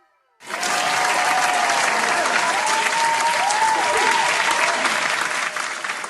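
Stock applause sound effect: a crowd clapping and cheering, starting about half a second in and running on steadily.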